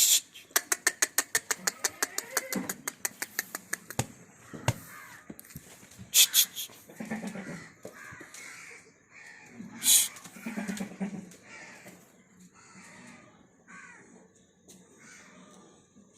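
Crows cawing, with a fast run of sharp clicks, about eight a second, in the first three seconds and two loud hissy bursts about six and ten seconds in.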